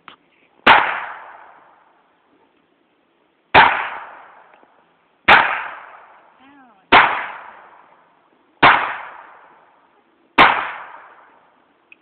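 Six single shots from a Raven .25 ACP pocket pistol, fired one at a time, the first gap about three seconds and the rest under two seconds. Each shot is a sharp crack that trails off in a short echo over about a second.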